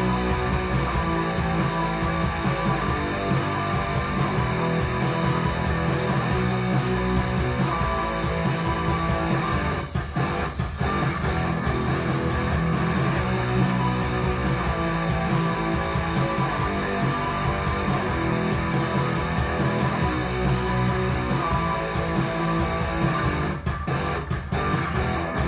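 Guitar-led music with strummed guitar and bass, played back through a hi-fi amplifier and speakers, with a brief drop in level about ten seconds in.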